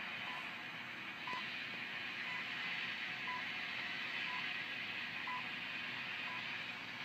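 Trio 9R-59 vacuum-tube shortwave receiver tuned to a station: a steady static hiss with a short, clear beep once a second, the pattern of a time-signal broadcast.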